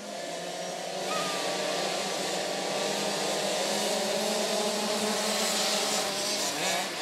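A pack of small two-stroke youth motocross bikes revving together at the start, then accelerating away at full throttle about a second in: many engines at once, rising in pitch.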